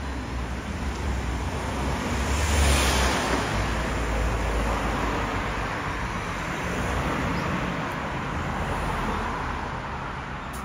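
Road traffic: a vehicle passing close by with a low engine rumble, loudest about three seconds in, then another pass a few seconds later before the noise fades.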